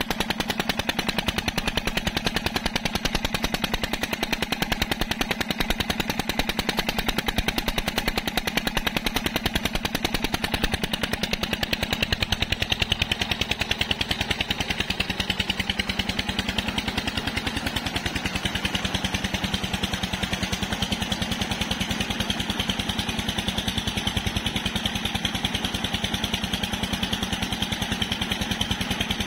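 Old Petter diesel engine running steadily with a fast, even train of exhaust beats as it drives an irrigation water pump. From about halfway in, the hiss of pumped water gushing into a concrete tank grows louder under the beats.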